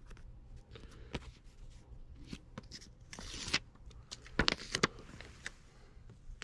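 Backing paper being peeled off an adhesive caution label, with light paper handling: a short tearing rasp about three seconds in, then a few sharp clicks.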